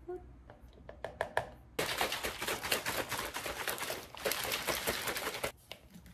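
A few scattered clicks and taps as protein powder is scooped, then a plastic protein shaker bottle shaken hard for about four seconds: a fast, dense rattle that stops suddenly.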